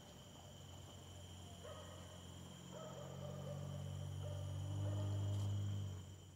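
Beagles baying in the distance while running a rabbit: a string of drawn-out calls about a second apart, over the steady chirring of crickets and other night insects. A low hum swells near the end.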